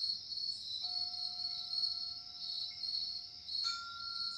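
Steady high chirring of crickets, with two ringing chime tones from improvised music, one struck about a second in and another near the end, each held.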